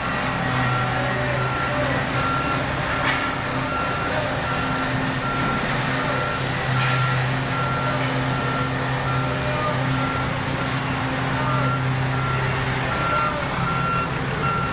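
Vehicle reversing alarm beeping at a steady, regular rate over an engine running steadily.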